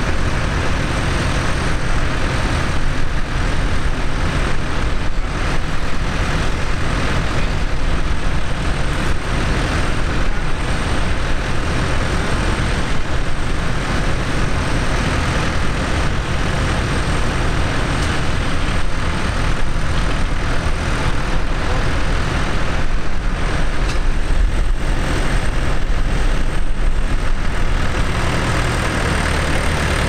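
Massey Ferguson tractor engine running steadily at low revs, a low even drone.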